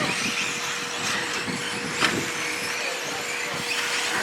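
Onboard sound of a racing electric RC short-course truck: motor whine and tyre and dirt noise at speed, with a sharp knock about two seconds in.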